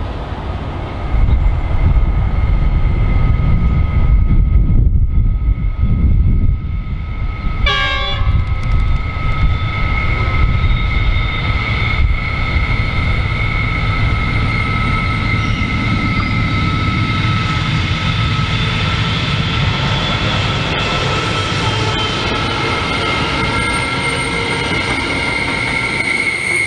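Three NR class diesel-electric locomotives pass at the head of a long container freight train, their engines working under power with a low rumble, followed by the rolling of the container wagons. A steady high-pitched wheel squeal continues throughout and grows louder as the wagons go by.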